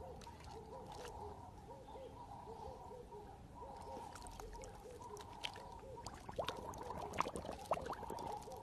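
Husky lapping and slurping pool water, the wet clicks and splashes growing louder and more frequent over the second half, with a faint repeated warbling call throughout.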